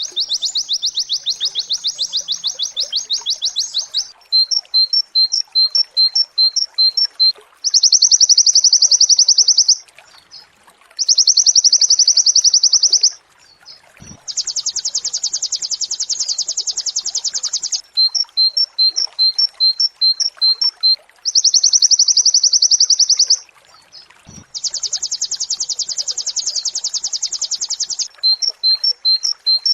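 Oriental white-eye (pleci) song in rapid-fire 'nembak' style: long, very fast high trills of two to four seconds alternate with runs of separate quick two-note chirps, over and over.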